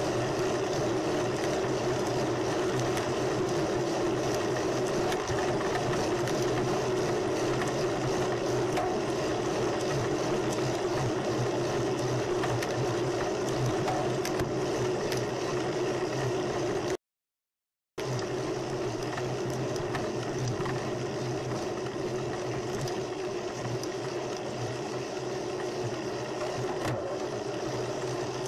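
Steady wind and road noise from a bicycle riding along a street, picked up by a bike-mounted camera's microphone. The sound cuts out completely for about a second just past halfway, then resumes unchanged.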